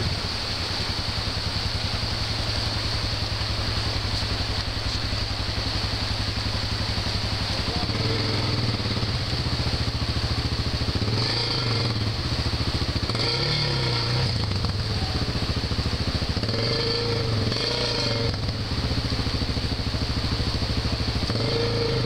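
Honda XR600's single-cylinder four-stroke engine running steadily, then revved up and down several times from about eight seconds in as the bike pushes through the river. The river rushes steadily underneath.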